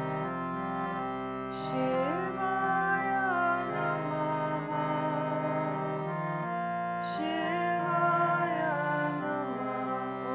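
Harmonium playing steady sustained chords in a kirtan interlude, with a melody line sliding between notes above it twice.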